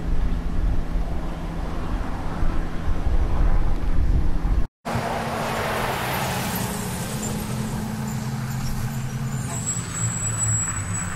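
A truck engine idling with a steady low drone, broken by a brief dropout in the sound a little under halfway through. A thin high whine joins near the end.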